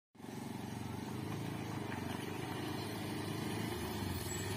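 Motorcycle engine running steadily as the bike rides up closer, getting a little louder and deeper near the end.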